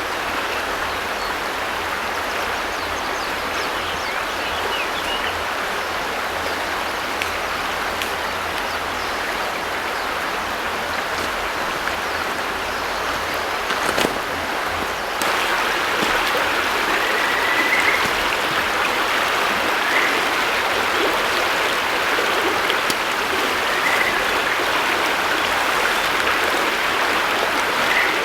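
River water running over a stony riverbed, a steady rushing that gets louder about halfway through.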